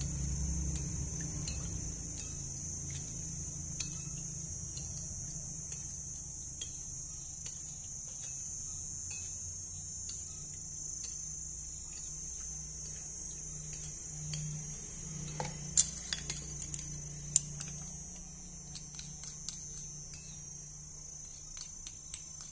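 Metal spoon stirring fish-sauce dipping sauce in a small ceramic bowl to dissolve the sugar and MSG, with light clinks against the bowl throughout and a few sharper clinks past the middle.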